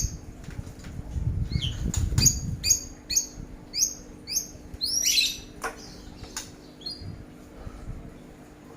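A small songbird giving a run of short, high, downward-sliding chirps, about two a second, then a harsher, rougher call about halfway through, with fluttering wing beats and sharp clicks in the first couple of seconds.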